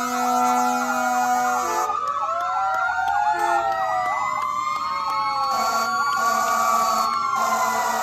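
Several emergency-vehicle sirens sounding at once, their wails and yelps overlapping in rising and falling glides. A steady horn blast runs through the first couple of seconds and comes back about five and a half seconds in.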